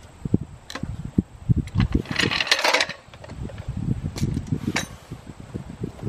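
Metal clanks and knocks from a small hydraulic floor jack being worked by hand with pliers under a pickup's front end, with a short hiss about two seconds in, then a few footsteps near the end.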